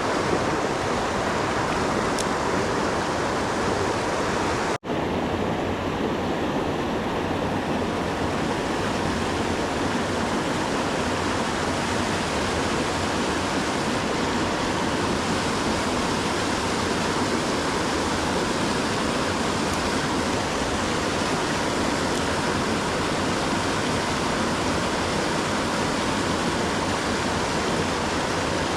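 Steady rush of water pouring over a creek waterfall, which cuts out for an instant about five seconds in.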